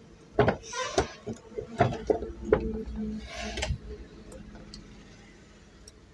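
Metal clicks and light knocks from the exposed gears and shafts in the head of a Shilpa sewing machine as they are handled and greased, with two short scraping sounds; the sounds stop about four seconds in.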